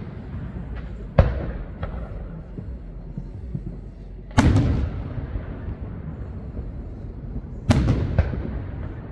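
Fireworks display: three big shell bursts, each a sharp bang with a rolling echo, about three seconds apart, with a few smaller cracks between them.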